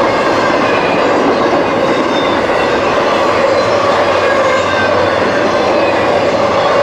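Freight train rolling past, a steady rumble and clatter of its wheels on the rails.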